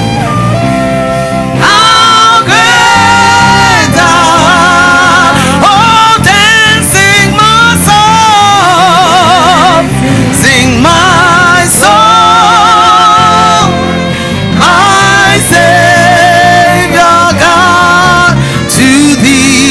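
Gospel worship singing with band accompaniment. A singer holds long notes, some with wide vibrato, over steady instruments underneath.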